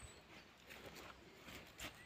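Near silence with a few faint footsteps on dry fallen leaves and gravel.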